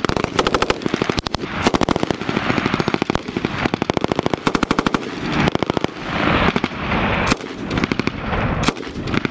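5.56 mm M249 light machine guns firing a string of short bursts at about a dozen rounds a second, with echo between bursts and a couple of single shots near the end.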